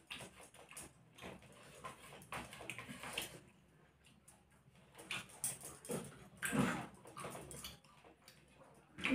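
Faint sounds of eating by hand: fingers mixing rice and curry on plates and chewing, with a few short, louder sounds around the middle.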